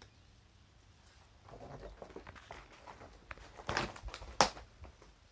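Footsteps on a floor strewn with broken plaster, brick and loose boards: a string of scrapes and knocks starting about a second and a half in, with two sharp knocks around four seconds in, the second the loudest.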